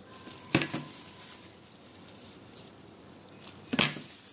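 Two sharp clinks about three seconds apart, each with a brief ring, the second louder: hard kitchenware knocked or set down on a hard surface.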